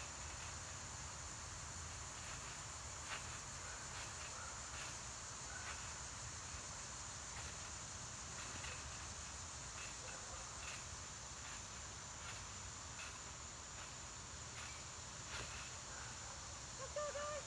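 Crickets chirping in a steady high-pitched chorus, with faint irregular thumps from someone bouncing on a trampoline. A brief pitched call comes near the end.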